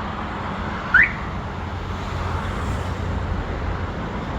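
A single short rising electronic chirp about a second in, from the truck's aftermarket smartphone alarm system responding to a remote door-unlock command, over a steady low hum.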